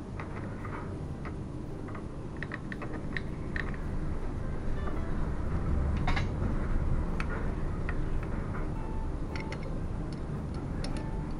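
Scattered small metallic clicks and taps as a carburetor is fitted onto a motorcycle engine and a screwdriver is worked beneath it, over a steady low rumble.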